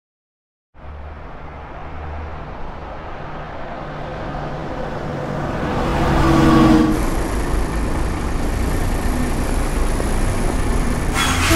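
Bus engine running with street traffic noise, starting suddenly about a second in and growing louder over the next few seconds.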